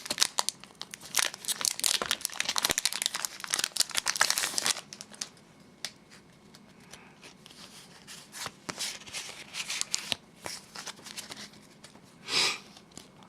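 Pokémon card booster pack wrapper crinkling and tearing open for about five seconds, then quieter rustling and light ticks as the cards are handled, with a short rustle near the end.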